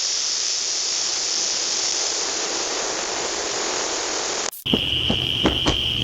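Smoke bomb hissing steadily as it pours out smoke. A little over four seconds in, the hiss cuts off abruptly and gives way to a steady high-pitched trill with several sharp pops.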